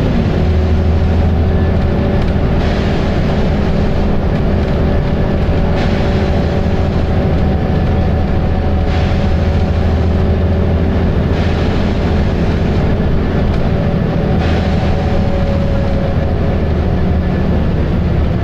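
Volvo B7RLE bus's diesel engine heard from on board: a steady, loud low drone with whining tones over it. Several short rushes of higher noise break in every few seconds.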